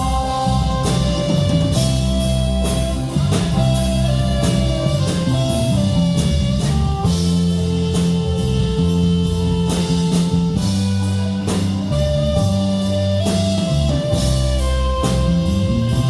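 Live worship band playing a slow instrumental passage between sung lines: a drum kit keeps a steady beat under held chords that change every second or two.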